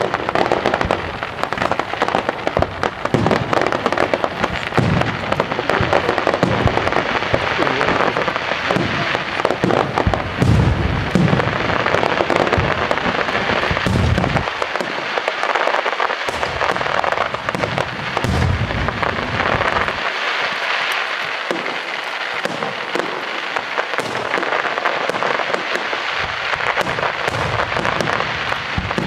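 Aerial fireworks shells bursting over the lake in quick succession, a dense run of bursts with continuous crackling from the falling stars.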